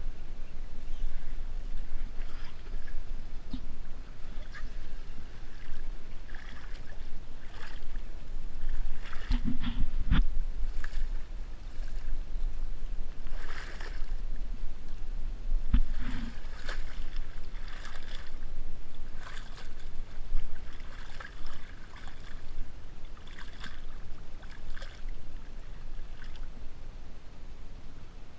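Reed stems swishing and scraping along a kayak and its camera as the boat is forced through a dense reed bed, over a steady low rumble. A few sharp knocks against the boat come about ten seconds in and again around sixteen seconds.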